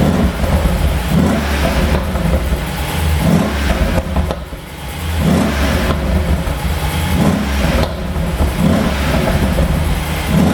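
Mercedes-AMG S63's twin-turbo V8 exhaust revved again and again, about every one to two seconds, with crackling pops from a pop-and-crackle tune. The engine eases off briefly about halfway through.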